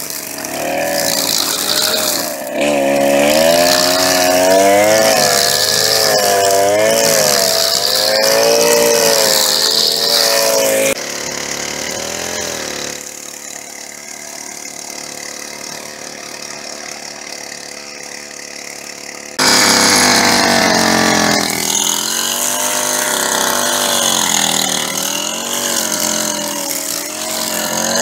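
Petrol string trimmer engine running at high speed while cutting grass, its pitch wavering up and down as it loads and unloads. About eleven seconds in it drops back to a quieter, lower running speed, then revs up again sharply a few seconds before the end.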